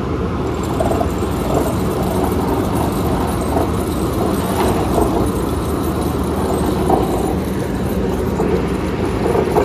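Tracked excavator's diesel engine running steadily at a constant pitch, with a steady hum.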